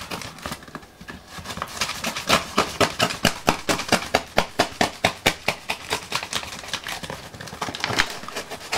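Knife blade sawing through packing tape on a cardboard box: a quick, even run of short scratchy strokes, about five a second, which slows and thins out near the end.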